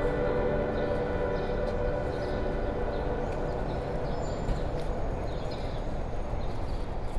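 A held music chord fades out over the first couple of seconds, leaving a steady rush of street and traffic noise with a few faint clicks.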